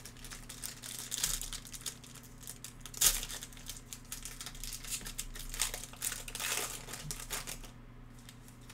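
Foil wrapper of a 2021 Panini Limited football card pack crinkling as it is handled and torn open, with the loudest crackle about three seconds in.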